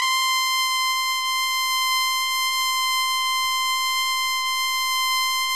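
A steady, high-pitched electronic beep tone held at one pitch without a break, like a test tone, playing under an animated logo outro.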